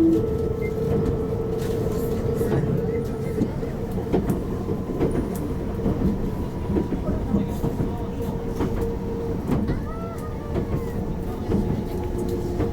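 Meitetsu 7000 series train running on the line, heard from aboard: a steady running hum with irregular clicks of the wheels over the rail joints.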